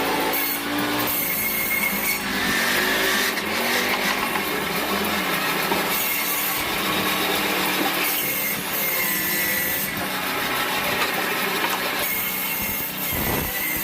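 Electric woodworking power tool running and cutting wood, a steady noisy run with a high whine that comes and goes.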